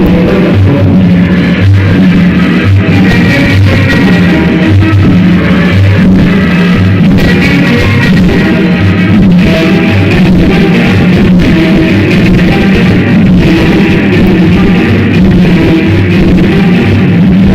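Loud dance music played over a sonidero sound system, with guitar and drums over a bass line that pulses in an even, repeating pattern.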